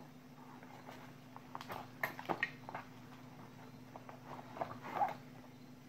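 Light clicks and crinkles from hands handling a soldering iron stand's coiled metal spring holder and its clear plastic wrapping, in two short clusters, over a steady low hum.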